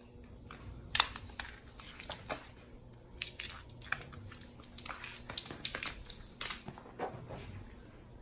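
A cat pawing at and playing with a toy on a wooden floor: irregular sharp taps, scratches and crinkly clicks, the loudest about a second in.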